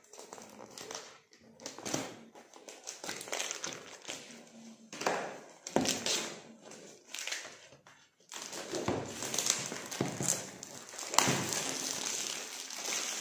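Packaging being handled while a smartphone gimbal is unboxed: the paperboard retail box scraping and tapping as it is opened, then a plastic bag crinkling as the contents are pulled out, denser from about eight seconds in.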